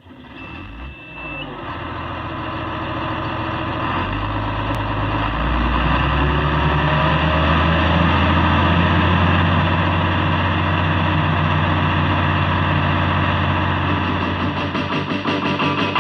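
Heavy engine running with a steady drone that grows louder over the first few seconds and then holds, after a short high beep at the very start.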